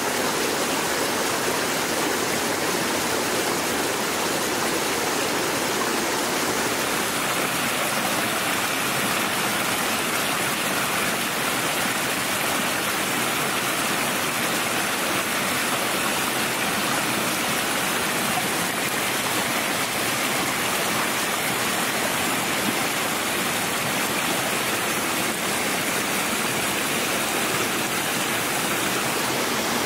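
A stream running steadily over rocks: a constant, even sound of flowing water.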